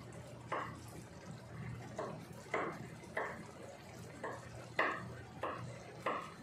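Risotto rice with butternut pumpkin and leeks boiling hard in a frying pan, its bubbles bursting with a sudden plop about every half second. A low steady hum runs underneath.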